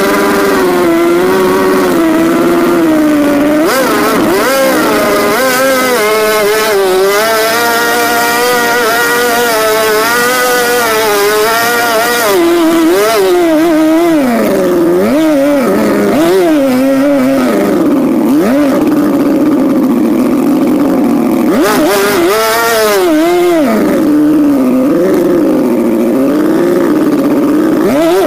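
Modified Mercury 55H racing outboard, a two-stroke, running hard through its twin exhaust pipes while being warmed up. Its pitch holds fairly steady for the first half, then rises and falls again and again as the throttle is blipped.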